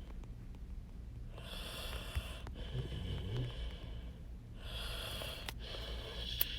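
A person breathing audibly close to the microphone: two long, noisy breaths, each lasting about a second, over a faint low hum.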